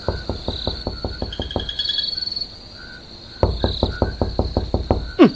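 Rapid knocking on a door in two runs of quick raps, about five a second, with a short pause between. Repeated high chirping runs behind it.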